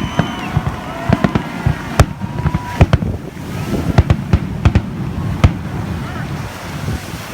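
Aerial fireworks bursting in a rapid series of sharp bangs that thin out after about five and a half seconds.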